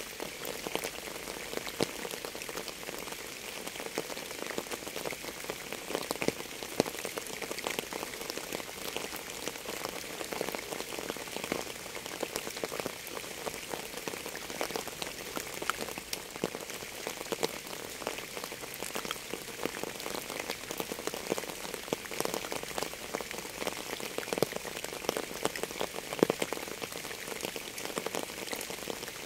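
Steady rain falling on a surface, a constant hiss with many separate drops striking as sharp ticks.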